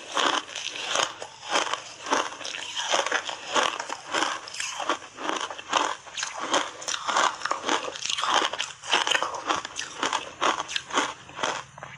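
Crunching and chewing of ice coated in matcha tea powder, a rapid, unbroken run of sharp crunches.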